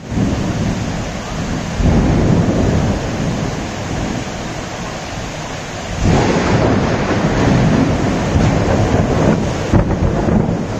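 Heavy downpour of rain with gusting wind, a dense steady rush with a deep rumbling low end. It swells about two seconds in and again about six seconds in.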